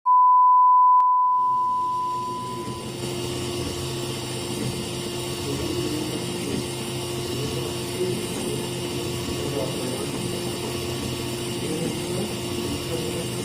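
A single steady electronic beep, loud for about a second and then fading away. After it, a 3D printer runs steadily: its motors give a wavering, shifting whine over the constant hum and hiss of its fans.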